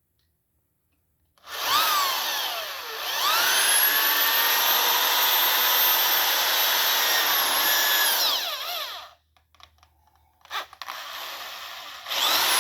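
Drill boring into a cast-iron engine block beside a previous repair pin, cutting the overlapping hole for a crack-pinning repair. It starts with a short burst about a second and a half in, then runs steadily at a high whine for about five seconds. It winds down, gives a few brief bursts, and starts again near the end.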